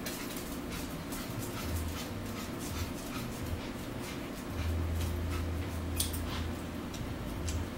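Mealtime eating sounds: chewing and mouth sounds with small clicks of forks on plates, over a steady low hum that swells for a couple of seconds about halfway through.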